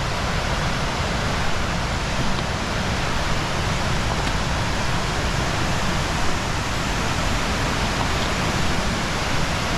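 Waterfall crashing steadily: a loud, even rush of falling water.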